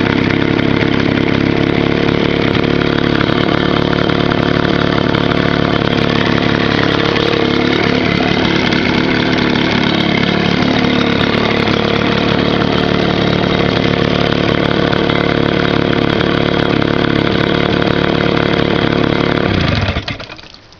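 1977 Johnson 9.9 hp two-cylinder two-stroke outboard motor running steadily, then shutting off near the end.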